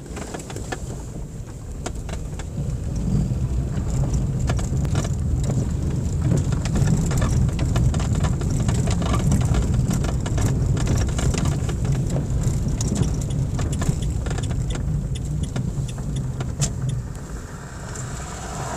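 Vehicle driving on a loose gravel and cinder track, heard from inside the cabin: a steady engine and tyre rumble with many small clicks and ticks from stones and interior rattles.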